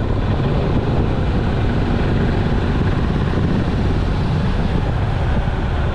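A steady, deep rush of wind and engine noise from a moving motorcycle.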